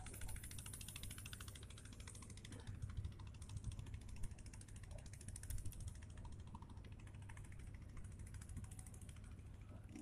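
Spinning fishing reel cranked steadily to retrieve a cast lure, its gears giving a fast, even ticking that stops near the end.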